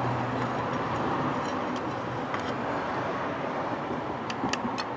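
Steady background vehicle noise, with a low hum that fades over the first seconds, and a few light metal clicks near the end as hands work the bolts of the thermostat housing.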